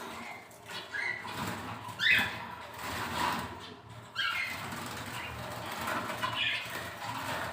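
Canaries fluttering their wings, with two short rising calls about two and four seconds in.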